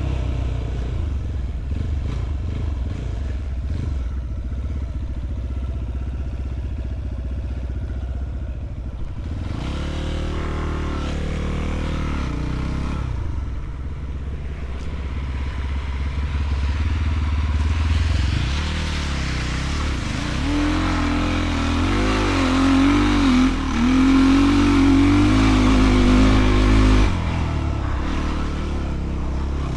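Enduro motorcycle engine running at low revs, then revved hard in uneven, wavering surges for several seconds before dropping back abruptly near the end.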